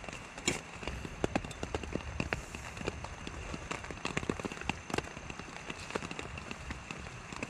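Rain falling on a tarp: a steady hiss with irregular, sharp taps of single drops hitting the fabric.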